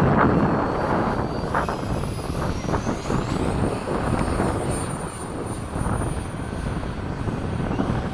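High whine of an electric ducted-fan RC jet in flight, over wind buffeting the microphone. The whine rises in pitch about two to three seconds in, then holds steady.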